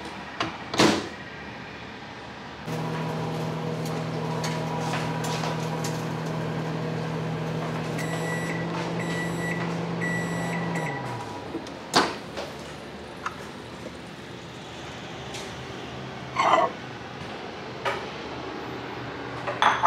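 Sensor microwave oven: its door clicks shut about a second in, then the oven runs with a steady hum. A string of short high beeps signals the end of the cycle, and the hum winds down and stops. The door then pops open with a sharp click, followed by light knocks and clinks as the ceramic bowl is taken off the turntable.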